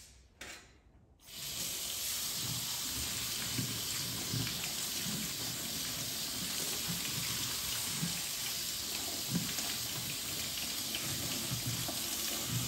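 Kitchen faucet turned on about a second in, water then running steadily into a stainless steel mesh strainer while hands rinse and turn its contents, with soft irregular knocks from the handling.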